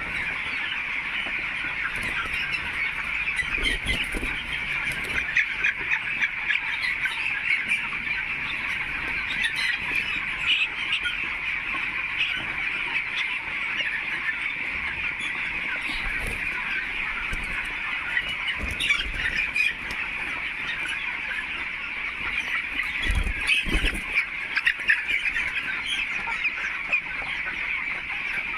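A large flock of poultry chicks peeping continuously, a dense chorus of overlapping high chirps. A few dull low thumps around four seconds in and again near the twenty-three-second mark.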